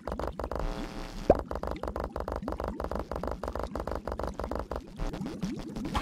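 Cartoon sound effects: a rapid string of short pops, a sharp rising blip about a second in, and from about five seconds a flurry of quick little rising chirps.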